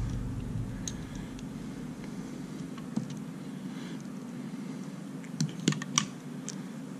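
Small clicks and taps of a screwdriver and knife parts being handled on a rubber work mat: scattered faint ticks, then three sharp clicks close together a little after five seconds in, over a steady low hum.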